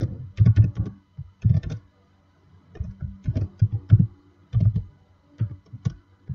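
Typing on a computer keyboard: several short bursts of keystrokes with brief pauses between them.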